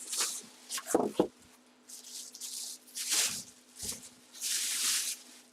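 Rustling and handling noises as a collectible football helmet and its packaging are moved about, with a couple of soft knocks about a second in and two more around three to four seconds.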